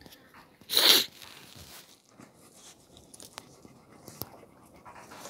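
Kangal puppies scuffling and scratching about in dry dirt, with a few faint clicks. About a second in comes a short, loud burst of noise.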